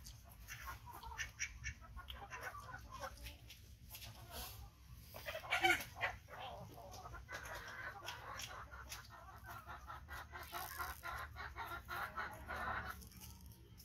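Chickens clucking in the background, a run of short repeated calls, with a louder, sharper burst about six seconds in.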